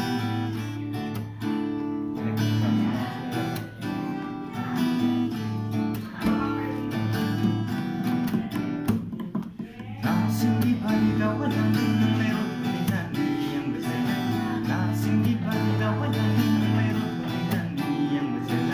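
Cutaway acoustic guitar strummed in steady chords, with a man singing along; the playing dips briefly about halfway through.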